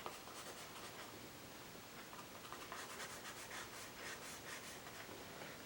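Pastel pencil rubbing on vellum-surface mixed media paper: faint scratchy strokes repeated in quick succession.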